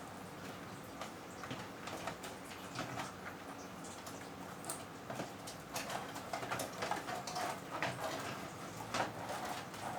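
Handling noise of a computer power supply being taken out to be shown: rustling with many small clicks and knocks, busier in the second half.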